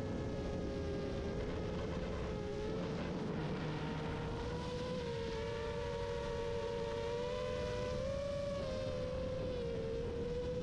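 FPV quadcopter's brushless motors whining, the pitch wavering up and down with the throttle, over a low rush of wind noise.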